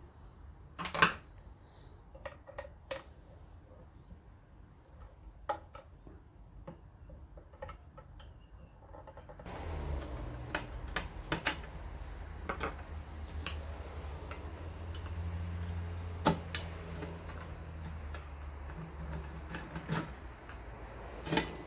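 Tools and small metal parts clicking and tapping while a vintage electric fan is taken apart, with scattered sharp clinks. About halfway in, a steady low hum starts and continues.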